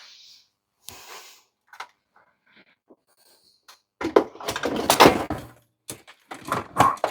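Scattered knocks and clattering of things being handled and moved about, like a door or drawer being opened and objects shifted while something is fetched. The busiest, loudest clatter comes about four to five seconds in, with another short burst near the end.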